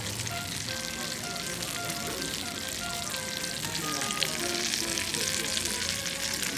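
Melted butter sizzling and crackling steadily on a very hot plate under a freshly served T-bone steak, still bubbling at the table.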